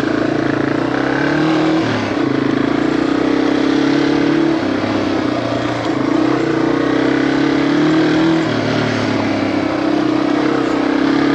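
Yamaha TW200's single-cylinder four-stroke engine running under way, its revs climbing and falling back several times. The exhaust has a loud tone, which the rider puts down to worn-out baffles in the muffler.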